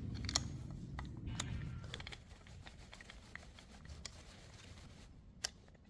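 Faint scattered clicks and light rattling of a small plastic belt guard and its bolts being fitted back on with a hex key, with a low hum that fades out about two seconds in.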